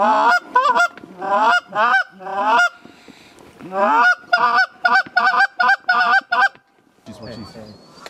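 A hunter's goose call blown hard, giving a string of loud honks with the cracking break of a goose's note. About four seconds in it changes to a fast run of short clucks, about four a second, and stops about six and a half seconds in.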